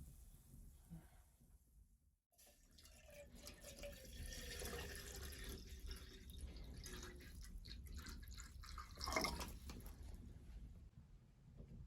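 Water dripping and trickling, with many small drips, starting after a brief gap about two seconds in. A louder rush comes about nine seconds in.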